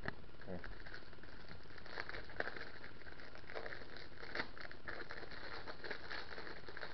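Thin plastic packaging crinkling and crackling as it is handled around a speed cube, with scattered small crackles and clicks throughout.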